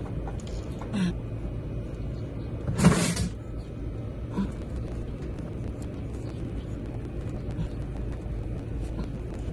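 Handling noises from an oil filter change on a motorcycle: a few short clunks, the loudest about three seconds in, over a steady low hum.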